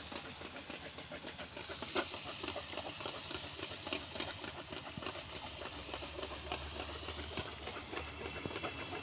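Gol gappe puris deep-frying in hot oil: a steady sizzle with dense fine crackling, and one sharper pop about two seconds in.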